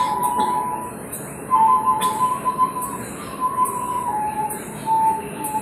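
Flute playing long held notes at one high pitch, stepping back and forth between two neighbouring notes, over a soft high rattle that recurs about every half second.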